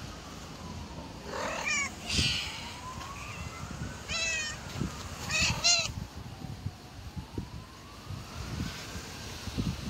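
Cats meowing: four or five short, high-pitched meows between about one and six seconds in. A siren wails faintly in the distance, slowly rising and falling.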